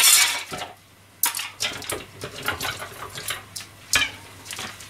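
Pots, pans and dishes clattering and knocking together in a stainless steel sink as they are sorted and washed up. There is a loud clatter at the start, another about a second in, and a sharp knock near the end.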